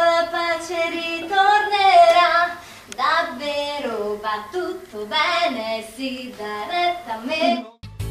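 A woman singing a musical-theatre song. The melody sits high for the first three seconds, then moves to a lower line, and the singing breaks off suddenly near the end.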